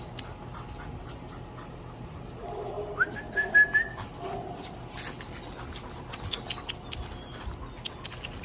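A dog whines briefly about three seconds in: a high whine that rises a little and breaks into short pieces, over a lower whine. Light clicks and scuffs of dogs' paws on concrete and gravel run around it.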